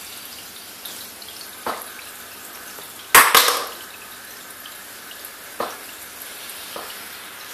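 Aquarium water trickling steadily, with a few separate drips or small splashes. The loudest is a sharp double splash a little over three seconds in.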